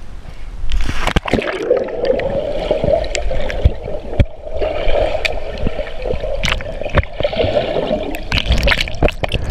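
Muffled rushing, gurgling and bubbling of pool water heard underwater, from a swimmer's kicks and strokes, with scattered sharp knocks. It starts suddenly about a second in, as the camera plunges under the surface.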